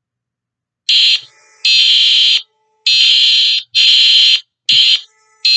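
Czech emergency alert alarm tone: loud, high-pitched blasts starting about a second in, six of them in uneven succession, each under a second long.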